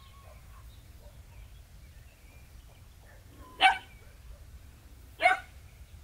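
Border collie puppy barking twice, two short barks about a second and a half apart.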